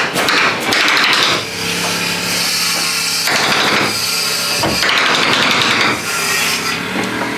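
Construction work on a wooden coop roof: several bursts of nailing and tool noise as the sheathing is fastened down, over a steady hum.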